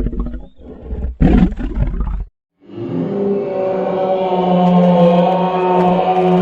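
Custom Tyrannosaurus rex roar sound effects layered from animal recordings. Two short, rough roars come in the first two seconds. After a brief gap comes a long roar with a steady pitch that swells slightly and holds.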